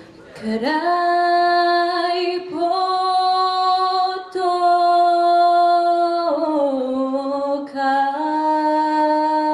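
A girl singing unaccompanied into a handheld microphone. She holds a few long notes, with short breaks between them, and slides down in pitch about halfway through.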